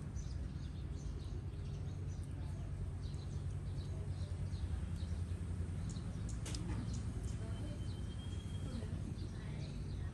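Outdoor ambience of scattered bird chirps over a steady low hum, with one longer level whistle about three-quarters of the way through.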